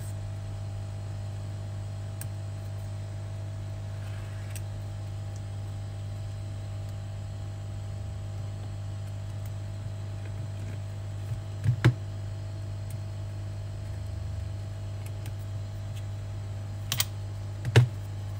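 Steady low hum, with a few sharp clicks of a metal scraping blade against the iPhone X's metal housing: once about two-thirds of the way through and twice near the end.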